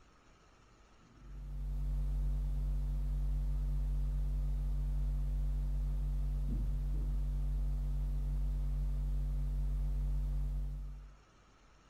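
A steady low hum with an even hiss over it, starting about a second in and cutting off near the end.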